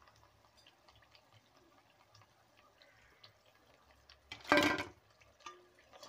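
Thattai deep-frying in hot oil: a faint sizzle with many small crackles and pops. A little over four seconds in comes one loud burst of noise lasting about half a second.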